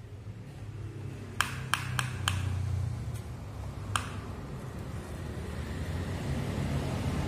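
Plastic toy excavator worked by hand: about six sharp plastic clicks in the first four seconds, then a soft gritty hiss as its bucket scrapes up sand, over a low steady hum.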